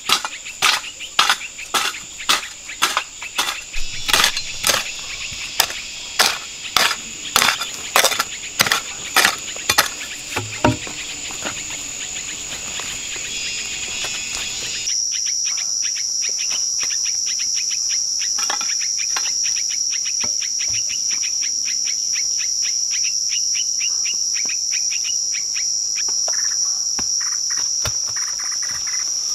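Forest insects droning steadily on a high, even note. For the first ten seconds or so a sharp click repeats about twice a second over the drone. About halfway through, the drone cuts over to a louder, slightly lower note with faint rapid ticking.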